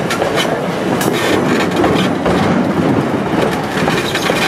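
A train rolling along, heard from aboard: a steady rumble and rush of wheels on the rails, with sharp clicks now and then.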